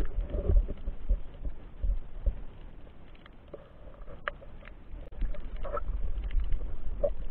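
Underwater ambience picked up by a diver's camera: a low rumble of water movement with scattered sharp clicks and crackles, a few louder clicks in the second half.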